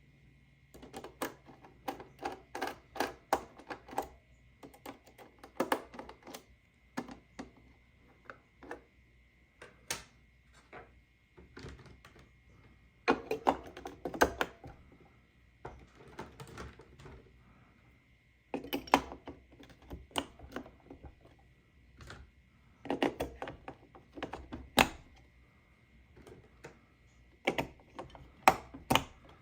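Clusters of irregular clicks and clattering knocks from a plastic toy claw crane game being handled, some sharp and loud, over a faint steady high whine.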